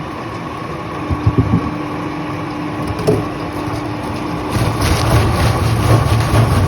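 Wood-processing machinery running steadily, with a few sharp knocks of wood. A louder, pulsing low rumble sets in a little past halfway.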